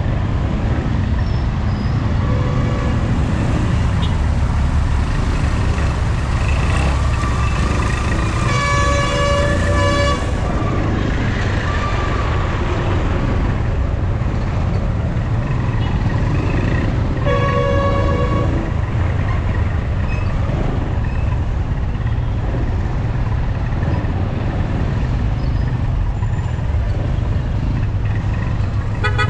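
Steady low rumble of motorcycle engines and street traffic, with vehicle horns honking: two longer horn blasts, one about a third of the way through and one about two-thirds through, and several short toots.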